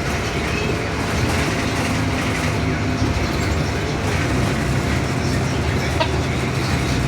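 Steady cabin noise inside a 2015 Blue Bird Vision school bus: engine drone and road noise.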